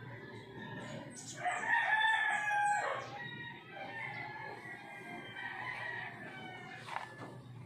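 A rooster crowing: one loud crow from about a second and a half in to about three seconds in, with fainter pitched calls carrying on after it.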